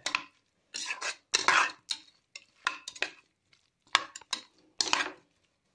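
A spoon stirring chicken bones and spices in a cooking pan: a string of irregular scrapes and knocks against the pan, with short pauses between.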